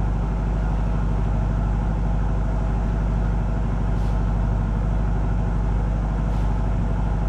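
A sailboat's engine running steadily, an even, unchanging engine sound.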